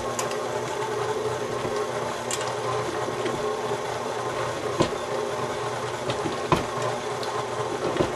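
KitchenAid Classic stand mixer motor running steadily with its flat beater paddle churning a heavy load of cooked chicken in the steel bowl, with a few sharp knocks as the chunks are thrown about. The bowl is judged to be overfilled.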